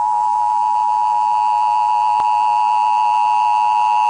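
Emergency Broadcast System attention signal: two steady tones of 853 and 960 Hz sounded together, held without a break.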